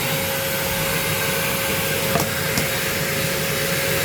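Bush corded stick vacuum cleaner's motor running steadily at full speed on its first test run: a constant whine over a rushing of air. Two faint clicks come a little over two seconds in.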